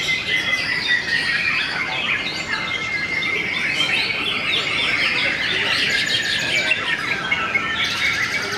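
Many caged white-rumped shamas (murai batu) singing at once in competition: a dense, unbroken tangle of overlapping chirps, whistles and trills.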